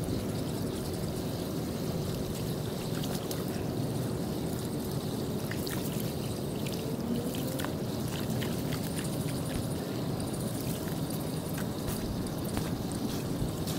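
Floodwater pouring steadily into a street storm-drain grate that has just been cleared of leaves and debris, with scattered small splashes and drips throughout.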